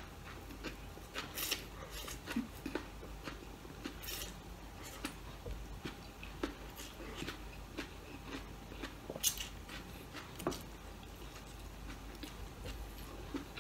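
A person eating glass noodles close to the microphone: a few short slurps among many small wet mouth clicks and chewing sounds.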